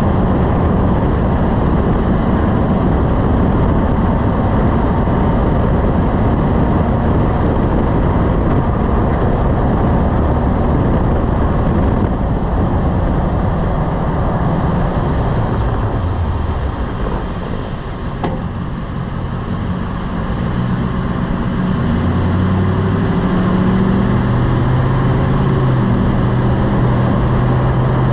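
Lifted pickup truck driving, with loud, steady road and drivetrain noise. It eases down around two-thirds of the way through, and one sharp knock comes as it slows, likely the clunk under braking that the owner is chasing; then the engine pulls again.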